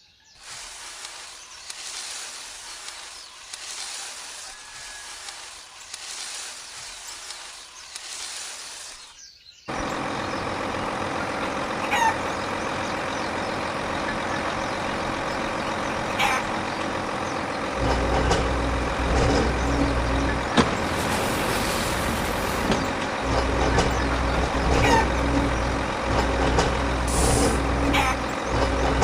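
A rough, fluctuating hiss for about ten seconds, then it cuts suddenly to a steady engine-like running hum. A heavy low rumble joins the hum about halfway through.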